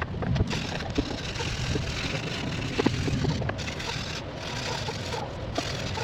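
Sanding on a fiberglass RC boat hull: a steady, gritty scraping with a few sharp knocks.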